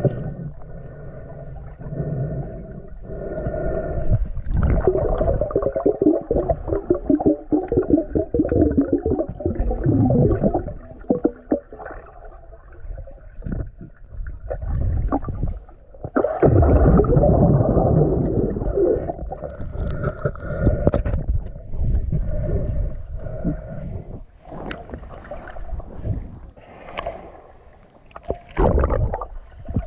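Muffled gurgling and rumbling of water heard by a camera held underwater, swelling and fading irregularly, with a few short sharp splashes or knocks.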